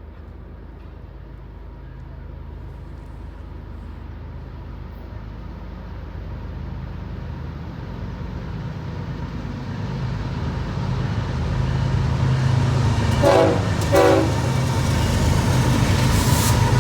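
A train approaching, its low rumble growing steadily louder. Two short horn toots come a little over 13 seconds in, and a steady horn-like tone joins near the end.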